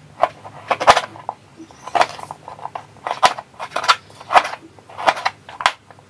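Kitchen knife slicing peeled fresh ginger root on a plastic cutting board: about ten crisp chops, irregularly spaced, each ending in a knock of the blade on the board.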